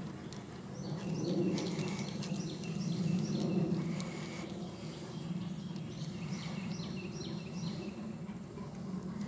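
Birds chirping in repeated short phrases over a steady low background hum.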